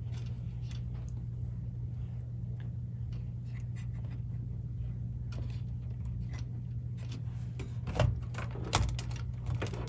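Light clicks and rattles of wires and small parts being handled inside an opened cassette deck, over a steady low hum, with a few sharper clicks near the end.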